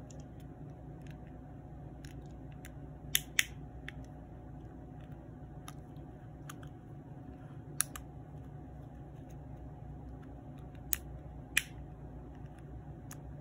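Sharp plastic clicks and snaps as a plastic pry tool works at the seam of a Toyota remote key's plastic shell, prying it apart: a quick pair about three seconds in, one near the middle and two more near the end, with fainter ticks between, over a steady low hum.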